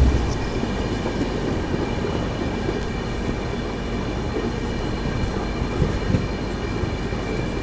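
Running noise of an express train heard from inside a passenger coach: a steady rumble of wheels on track, with a faint high whine over it.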